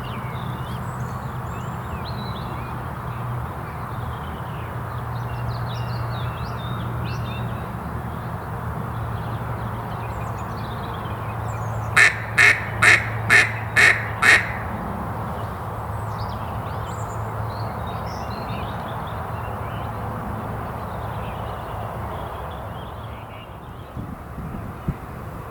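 A duck quacking six times in quick, even succession about halfway through, over scattered faint songbird calls and a steady background hiss with a low hum.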